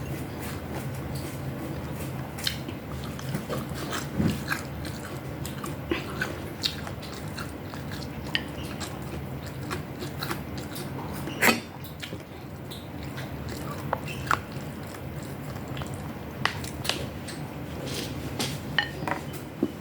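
A person eating, close to the microphone: chewing and biting with scattered small clicks and smacks, one sharper click about halfway through, over a low steady hum.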